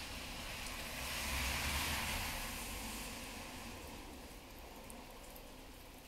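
A vehicle passing by: a rush of tyre noise with a low rumble that swells, is loudest about two seconds in, and fades away.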